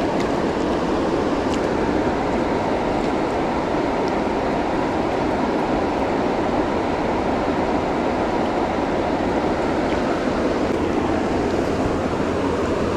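Steady rushing of flowing river water, even and unbroken, with a few faint clicks.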